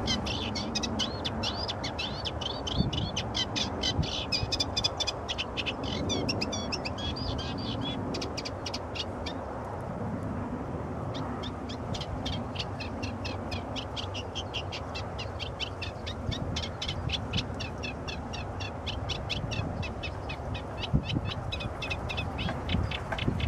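A songbird singing a long, fast, scratchy chattering song of rapid varied notes, with a break of about a second and a half near the middle, over a steady low background rumble.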